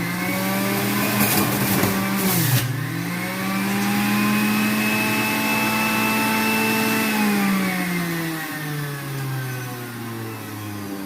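Electric juicer motor running loudly, its whine dipping sharply with a grinding crunch as apples, ginger and lime are pushed in near the start and again about two and a half seconds in, then recovering; the pitch sags lower again near the end under load.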